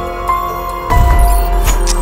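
Background music: held synth notes over a deep bass, growing louder with a heavier beat about a second in.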